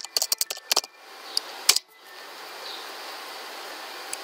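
Typing on a computer keyboard: a quick run of keystrokes, then one louder key press about a second and a half in, followed by a steady faint hiss.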